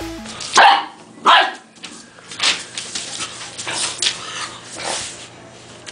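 Two-month-old Dogue de Bordeaux puppy barking at a toy: two loud barks about half a second and a second in, then a string of quieter barks and yips roughly every half second to second.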